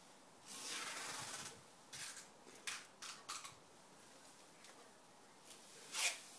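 A cat's claws scraping and gripping tree bark with leaves rustling as it climbs: a scratchy rustle lasting about a second, several short scrapes, and one sharper, louder scrape near the end.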